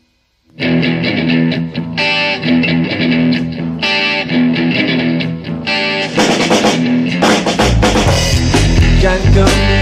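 Instrumental section of a blues-rock song: after a moment of silence, guitar and drum kit come in together about half a second in. The low end grows much heavier near the end as the band builds up.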